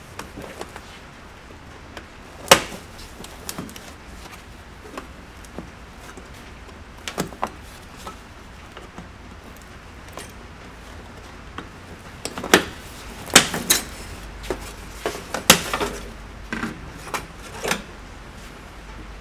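Sheet-metal boiler housing of an RV absorption fridge cooling unit being worked loose at its tabs and pulled off: scattered metallic clicks and clanks, a sharp one about two and a half seconds in and a quick run of clanks near the end.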